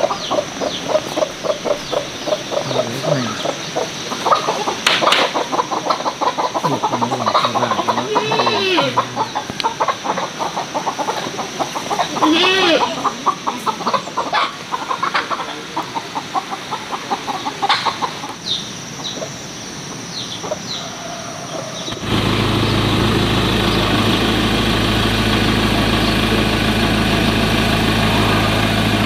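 A flock of chickens clucking rapidly, with a few longer, drawn-out sweeping calls among them. After about twenty seconds the sound cuts abruptly to an engine idling steadily.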